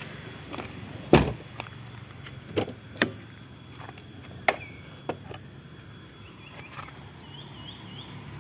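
A Honda Accord Maestro's car door shutting with a solid thump about a second in, followed by several lighter clicks and knocks of door handling as the front door is opened.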